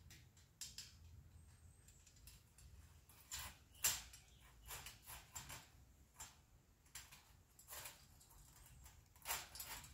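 Scattered light clicks and small rattles of wire fence panels being handled and fitted together, the sharpest click about four seconds in and another cluster near the end.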